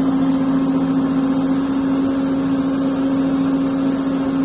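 A heavy machine's engine running at a steady speed, with an even hum that does not change.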